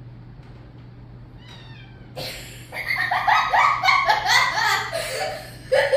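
Kitten meowing: a short falling meow about a second and a half in, then a loud run of quick, high meows, about four a second, mixed with a girl's laughter.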